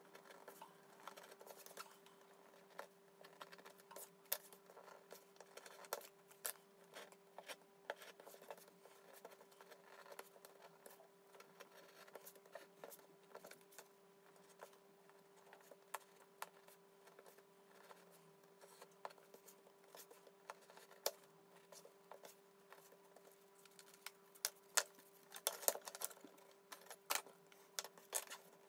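Craft knife blade scratching and cutting through grey cardboard on a cutting mat: faint scraping with scattered sharp clicks, busier and louder near the end. A faint steady hum underneath.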